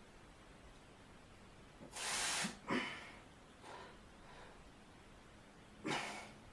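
A man's forceful breaths through nose and mouth while straining to hold a back double biceps pose: a hard half-second exhale about two seconds in, a quick sharp breath straight after, and another hard exhale near the end.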